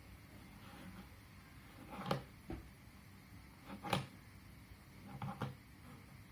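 A few short plastic clicks and knocks, about five spread over several seconds, as a 7×7 Rubik's cube is handled.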